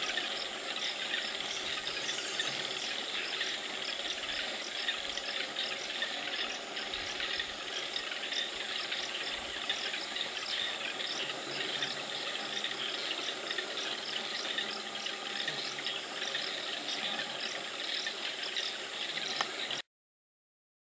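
Rainforest ambience: a steady high insect drone and rhythmic chirping about twice a second over a dense hiss. It cuts off suddenly near the end.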